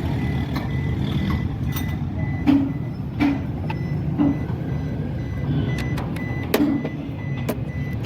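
Suzuki Every's small three-cylinder engine running with a steady low rumble, broken by irregular thuds about once a second. The car is misfiring on cylinder 2, with its check-engine light blinking.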